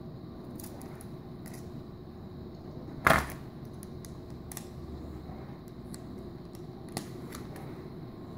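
Handling noise from a hand-held phone camera: one loud knock about three seconds in and a few lighter clicks over a steady low room hum.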